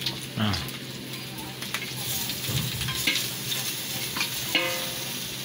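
Pieces of pre-boiled pork sizzling as they fry in an aluminium wok, with a steel spoon scraping and clinking against the pan as they are stirred, while the pork's fat starts to render out. A short metallic ring about four and a half seconds in.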